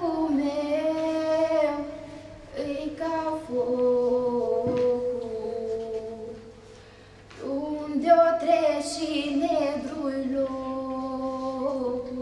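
A young woman singing a slow Romanian folk lament unaccompanied: three long phrases of drawn-out, held notes, with short breaks about two and seven seconds in.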